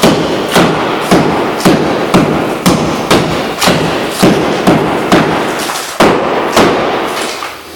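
Hammer blows on wood, struck steadily at about two a second and stopping near the end.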